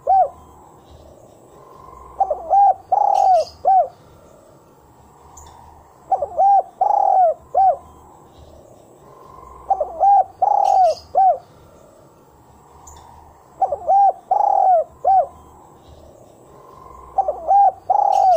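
Spotted dove (tekukur) singing its cooing phrase of several notes, repeated about five times at a steady spacing of a few seconds. This is the 'kuk 1' song type that Indonesian dove keepers prize in a bird singing freely. Faint chirps of small birds are heard between the phrases.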